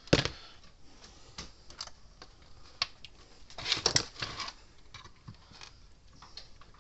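Irregular clicks and taps of hand tools and small parts being handled during bench repair work on an electric fence energizer. There is a sharp click right at the start and a cluster of louder clatter about four seconds in.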